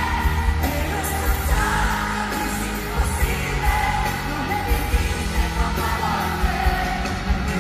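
Live pop music with a woman singing lead over the band, loud and amplified through an arena sound system, heard from among the audience.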